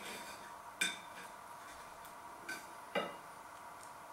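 Metal knife and fork clinking against a plate while cutting a pie: one sharp ringing clink just under a second in, then two more close together near the end.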